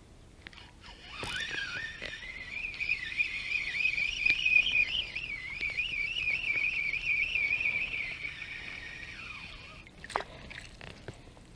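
A Shimano Sedona 2500 spinning reel cranked fast to bring in the lure, its gears giving a wavering whine. The whine rises as the cranking starts about a second in, holds for roughly eight seconds and dies away, and a single click follows.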